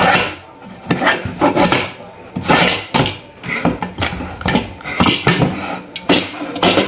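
Metal lid of an SK Cookware pressure cooker being twisted loose along the pot's rim and lifted off: a series of scrapes, knocks and clunks from metal and plastic handles.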